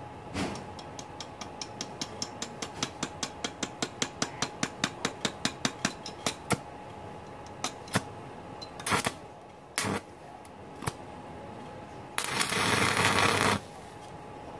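Stick welding on a Daisung ARC200-MOS inverter welder set to 110 A: a run of sharp ticks, about four a second, then a few scattered clicks, then the arc burning with a steady crackling hiss for about a second and a half near the end.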